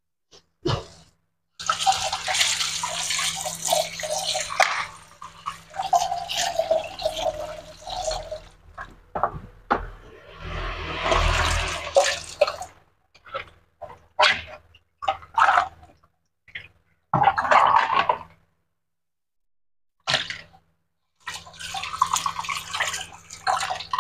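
Tomato and mackerel tuna sauce bubbling and popping as it simmers in a wok, in irregular bursts with short pauses between.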